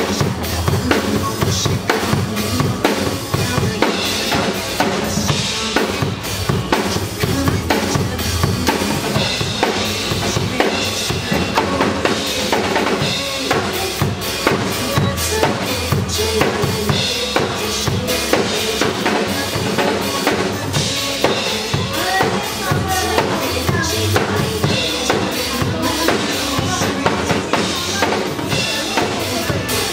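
Live pop band playing with a steady drum-kit beat, kick and snare driving the song.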